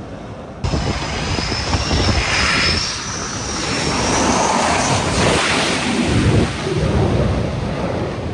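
F/A-18 fighter jet's twin engines running loud as it comes in to land on an aircraft carrier's flight deck, with a high wavering turbine whine over the roar that fades out about halfway through.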